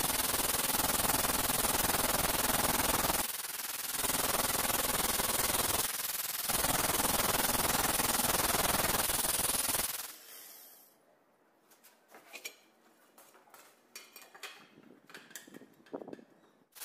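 Angle grinder with a diamond disc cutting through a ceramic tile: a loud, steady grinding that dips briefly twice, about 3.5 and 6 seconds in. About 10 seconds in the grinder is switched off and winds down, leaving only a few faint knocks and scrapes.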